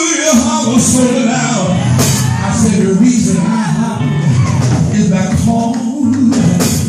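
Live gospel music in a church service: singing with band accompaniment and percussion hits.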